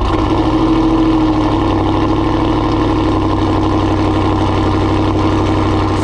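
Modified 5.7-litre Hemi V8 heard at the exhaust tips at its raised cold-start idle seconds after firing, running steadily with a slight drop in pitch as the idle settles.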